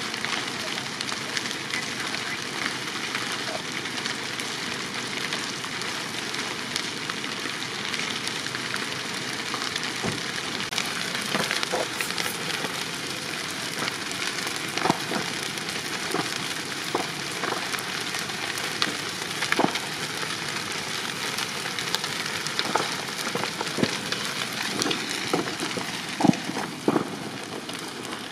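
Wood-frame building burning: a steady rushing noise of flames with sharp crackles and pops of burning timber, the pops coming more often in the second half.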